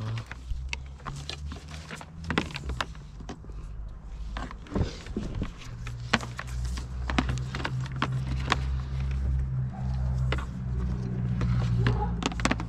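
Scattered sharp clicks and knocks of ATV parts and wiring being handled during work on the machine, over a steady low hum that dips briefly about five seconds in and then comes back louder.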